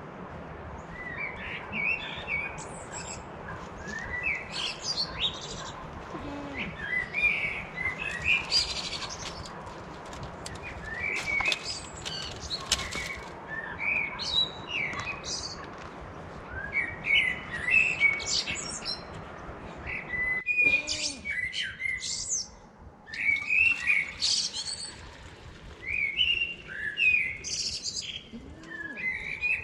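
Small birds chirping and calling over and over in short, high, quick notes, over a steady background hiss that drops away suddenly about two-thirds of the way through.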